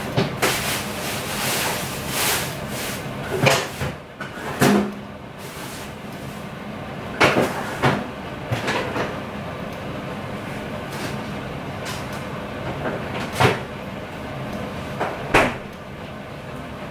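Kitchen cupboard doors being opened and shut: several sharp knocks and bangs scattered irregularly, over a steady low hum.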